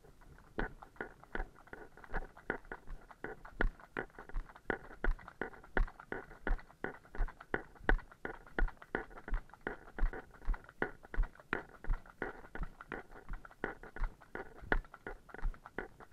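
Horse's hooves striking a wet tarmac road, a quick, even clip-clop of about three strikes a second that starts about half a second in.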